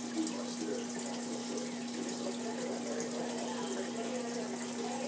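Saltwater aquarium's water circulation running: a steady trickle and splash of moving water with a constant low hum from the pump.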